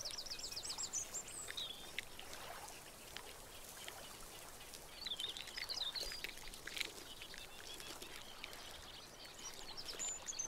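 Birds singing: a quick run of repeated high notes at the start, then scattered chirps and short phrases, busiest about halfway through and again near the end, over a faint outdoor hiss.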